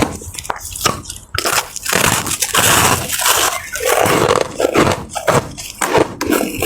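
Close-miked biting and crunching of ice in the mouth: a run of sharp, irregular crunches, with a longer grinding stretch in the middle.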